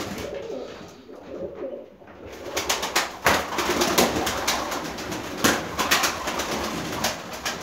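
Turkish tumbler pigeons in a loft: low cooing for the first couple of seconds, then a run of quick wing flaps and sharp wing claps as birds take off and fly across the room.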